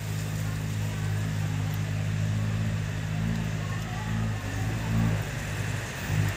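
A motor vehicle's engine running at idle: a steady low hum that weakens about five seconds in.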